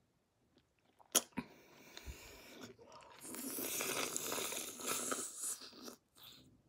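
Mouth and breath noises close to the microphone as a Sweet Tarts candy is held at the lips: two sharp clicks a little over a second in, then a few seconds of breathy hissing that swells and stops suddenly near the end.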